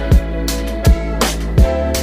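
Background music with a steady beat: deep drum thumps about every two-thirds of a second under held notes.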